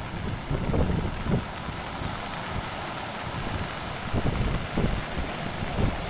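Surf from a typhoon swell breaking and washing up the beach as a steady hiss, with wind buffeting the microphone in irregular low gusts.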